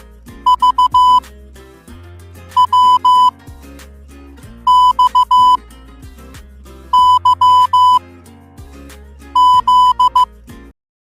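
Morse code played as a high electronic beep tone, keyed in short and long beeps (dits and dahs), in five groups about two seconds apart. Under it runs background music with a bass line. Everything cuts off abruptly near the end.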